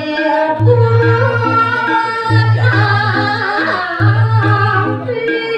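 A woman singing a Balinese geguritan in a wavering, ornamented melody over an instrumental accompaniment with a repeating low pulse.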